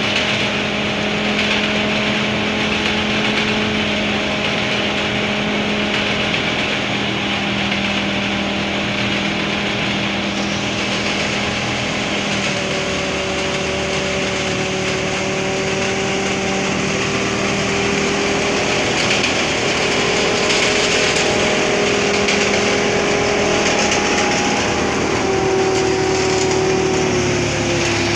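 Truck-mounted rice thresher running steadily under load: a loud engine-and-drum hum that drifts slightly in pitch, over a constant hiss.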